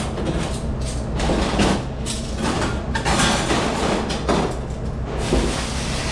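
Commercial dish room noise: a dish machine's steady low hum with repeated clattering knocks of dishes and racks, about half a dozen times.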